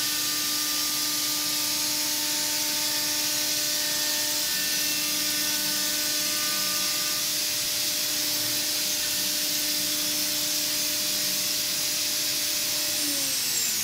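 Doosan DVF 6500 five-axis machining center finish-milling with a 1/2-inch Kennametal three-flute ball-nose end mill at 18,000 rpm: a steady hiss over a steady high spindle hum. Near the end the hum falls in pitch as the spindle winds down.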